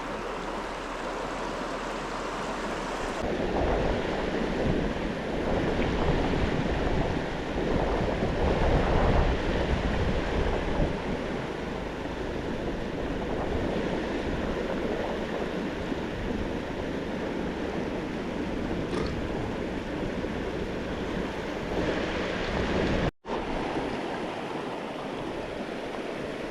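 River water rushing steadily over riffles and a small falls, swelling louder for several seconds with some wind rumble on the microphone. The sound cuts out for an instant near the end.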